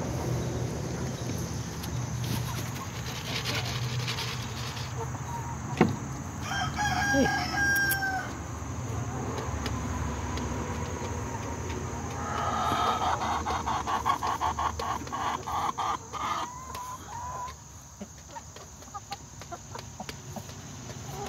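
Chickens: a rooster crows once, about a second and a half long, right after a sharp knock some six seconds in. Later comes a fast run of repeated clucks lasting about four seconds and ending in a drawn-out note.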